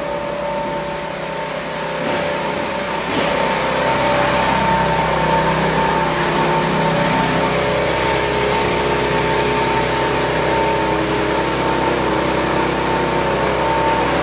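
A machine running steadily with a constant hum and whine, growing louder about two to three seconds in and then holding level.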